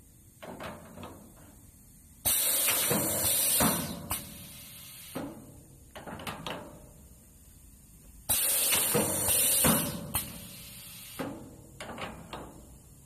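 Pneumatic cylinders of a semi-automatic gummy candy depositor cycling: loud bursts of compressed-air hiss, a long one then a shorter one, repeating about six seconds apart. Between the bursts come light metal clicks and knocks from the machine.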